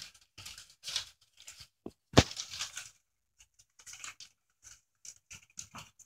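Pet rats rustling and tearing paper bedding in their cage: irregular crinkles and rips, with one sharp knock about two seconds in.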